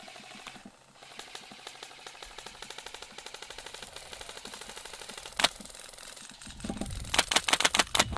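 Airsoft guns firing: a long full-auto burst of rapid, even clicks lasting several seconds, one sharp crack about five and a half seconds in, then a louder run of shots near the end.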